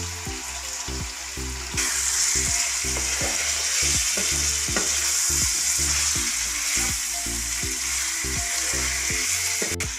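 Chicken pieces in spiced oil sizzling in a nonstick kadai on high flame while a spatula stirs them; the sizzle gets louder about two seconds in. Soft background music plays underneath.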